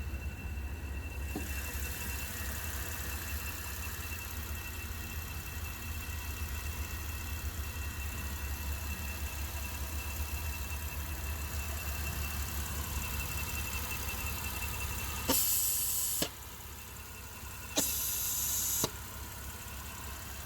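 Porsche Panamera engine idling with a thin, steady high-pitched whistle over its low hum, the whistle that an oil separator replacement is meant to cure. About fifteen seconds in, two loud hissing bursts of about a second each come a second and a half apart.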